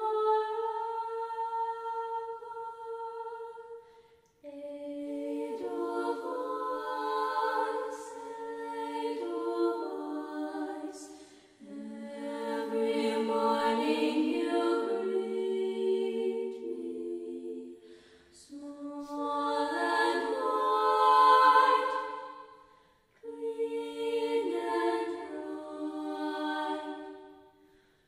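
Background music: voices singing a cappella in slow, sustained chords, in phrases a few seconds long with brief pauses between them.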